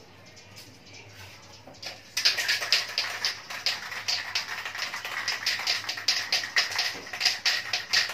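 Aerosol spray can of clear-coat paint being shaken, its mixing ball rattling in a fast, even rhythm that starts about two seconds in, before spraying.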